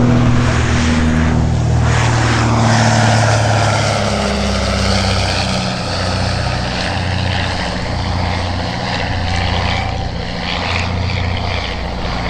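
The piston engines of a twin-engined de Havilland DH.89A Dragon Rapide biplane airliner, running steadily as it flies past.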